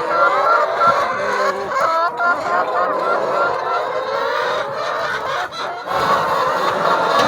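A flock of chickens clucking and calling, many birds at once and overlapping.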